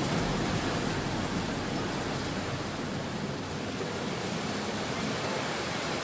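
Steady rushing of sea surf breaking along a rocky shore, an even wash of noise with no distinct splashes.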